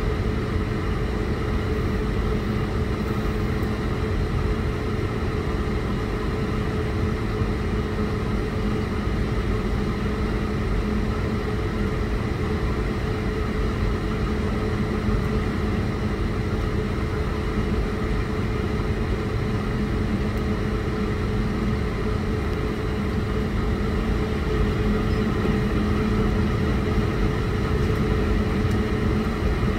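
Steady drone of an airliner cabin on the ground: a low hum with a few steady tones from the aircraft's running engines and air-conditioning, growing slightly louder near the end.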